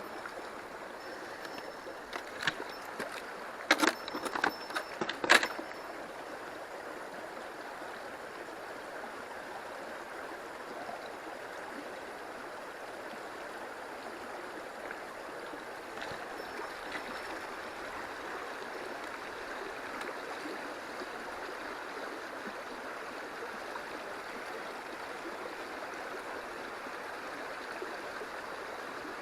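Stream water flowing steadily. A handful of sharp knocks or clicks come between about two and five seconds in.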